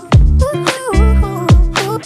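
Background music with a steady beat: heavy bass kicks under a gliding melodic line.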